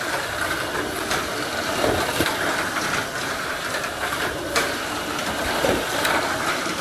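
Tamiya Mini 4WD K4 Gambo running laps on a plastic Mini 4WD track: a steady high motor-and-gear whine with the car rattling along the track walls, and sharp clacks every second or so.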